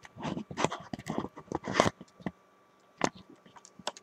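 Rustling and knocking handling noise as the woman wearing a boned shapewear vest turns and pulls it straight close to the microphone: a dense run of rustles and knocks over the first two seconds, then a few separate clicks.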